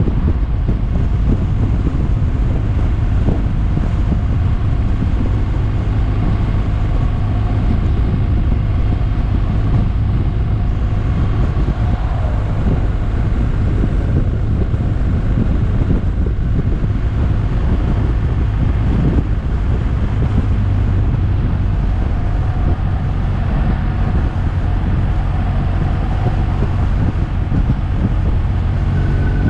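Motorcycle riding at steady speed on an open road, with wind rushing over the microphone as a heavy, steady rumble and the engine's tone faint beneath it.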